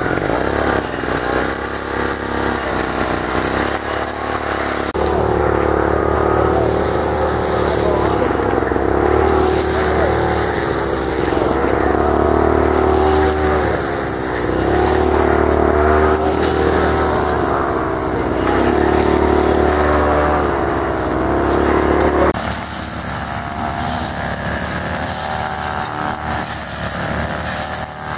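Two-stroke brush cutter engines running and revving up and down while cutting grass and weeds. The sound changes abruptly about five seconds in and again about three-quarters of the way through.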